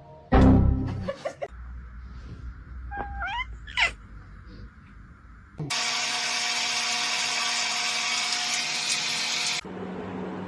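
A loud thump near the start, then a small motor runs steadily with a whirring hum for about four seconds and cuts off suddenly.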